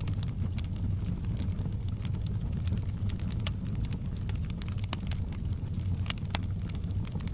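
Fireplace fire crackling: irregular sharp pops and snaps, several a second, over a steady low rumble of the flames.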